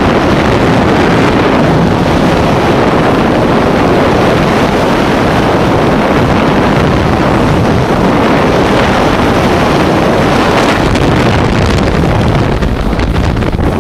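Freefall wind rushing over the camera's microphone during a tandem skydive: a loud, steady rush that turns slightly choppier near the end.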